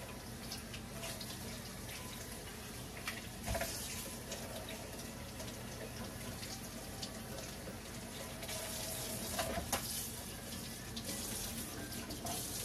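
Tap water running into a stainless steel kitchen sink as raw chicken breasts are rinsed under it, with splashing and occasional light knocks against the sink. The splashing is heaviest about three and a half seconds in and again near the ten-second mark.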